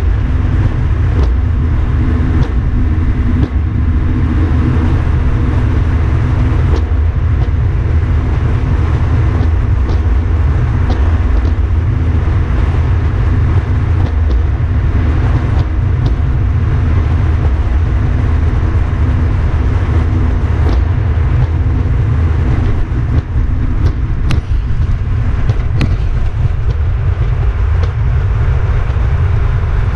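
Small aluminium boat underway on a river, its motor running at a steady cruising speed with a deep drone, and water rushing along the hull.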